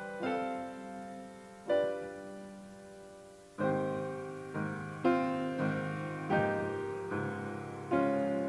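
Piano playing slow, quiet chords, each one struck and left to ring and fade.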